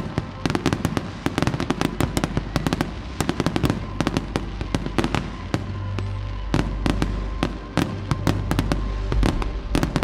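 Fireworks display: aerial shells bursting in a dense, fast run of bangs and crackles, with music playing underneath.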